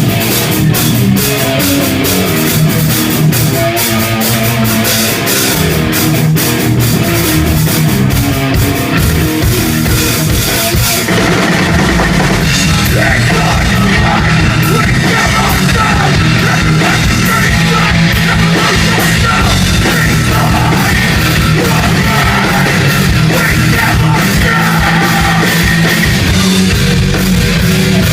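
Live heavy rock band playing loud, with a pounding drum kit and distorted guitars. About eleven seconds in, the song shifts into a denser, fuller section.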